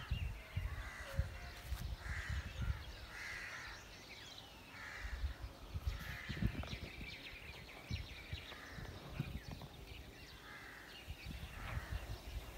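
Crows cawing a few times, with a pause midway, over wind buffeting the microphone in low gusts.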